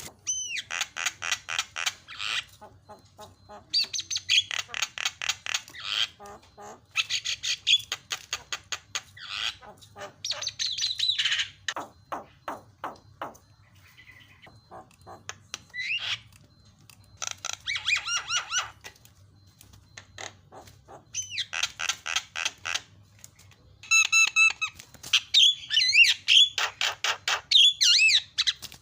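Javan myna singing energetically: bursts of rapid, harsh chattering notes about one to two seconds long, mixed with whistled upslurs and downslurs, repeating every few seconds with short pauses between.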